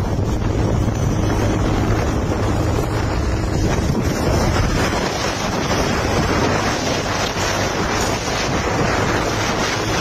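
Wind buffeting a phone's microphone: a steady, loud rushing noise with no let-up.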